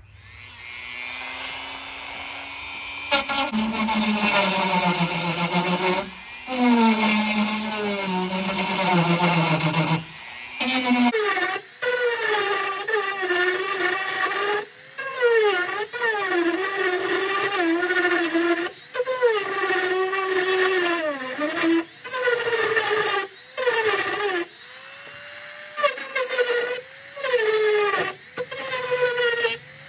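Dremel rotary tool grinding through the fiberglass bonding strip to cut out rivet heads. It makes a high whine whose pitch sags each time the bit bears into the material and recovers as it eases off, with brief stops every few seconds.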